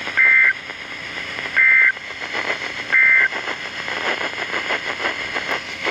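NOAA Weather Radio sending its SAME digital data bursts: three short, loud, shrill warbling squawks about a second and a half apart, the End-of-Message code that closes a broadcast alert. Between them the handheld weather radio's receiver hisses and crackles with static.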